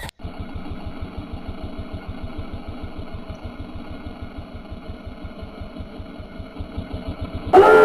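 Dirt bike engine running at a steady idle with an even low pulse, sounding dull with no high end. A much louder sound breaks in just before the end.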